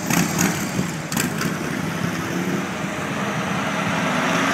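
Motor coach diesel engines running as the buses pull out, with a few short hissing bursts in the first second and a half. The engine sound grows louder toward the end as a coach passes close by.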